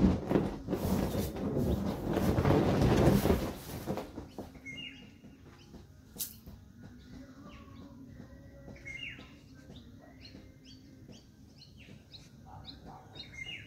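The vinyl of a large inflatable ride-on wolf toy rubbing and flexing under a rider bouncing on it, loud for the first four seconds, then stopping. After that, birds chirp repeatedly in the background.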